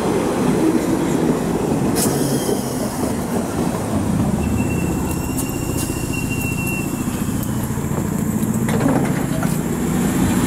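Bakerloo line tube train (1972 Stock) running on the track: a steady rumble of wheels and motors with a few sharp clicks, and a thin high squeal for a couple of seconds midway.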